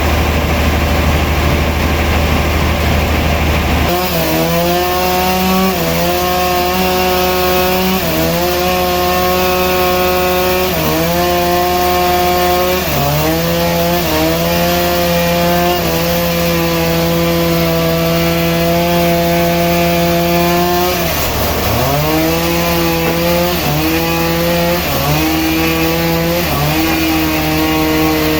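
Sawmill saw cutting through a large log, its engine running under load with the pitch sagging and recovering every two seconds or so as the blade bites into the wood. For the first four seconds a deep, steady engine drone is heard before the sawing sound takes over.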